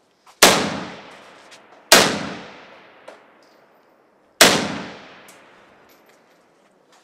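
Three rifle shots, about half a second, two seconds and four and a half seconds in. Each has a long echo off the brick walls and roof of a covered firing lane.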